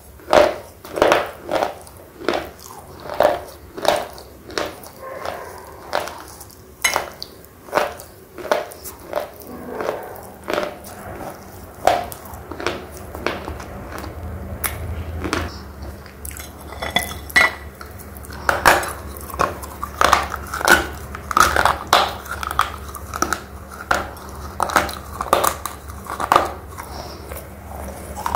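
Close-up chewing of red slate pencil pieces: dry, gritty crunches at about one to two a second, easing off for a few seconds in the middle before picking up again. A faint low hum comes in about halfway.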